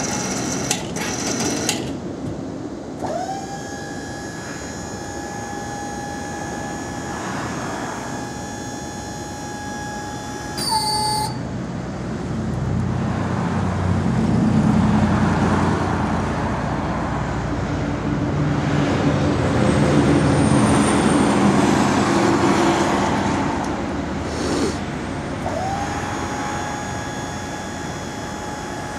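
Weightlifter truck lift's electric motor running as it lowers a dump bed: a steady high whine that spins up about three seconds in and winds down about eight seconds later, then spins up again near the end. Between the two runs a louder low rumble fills the middle.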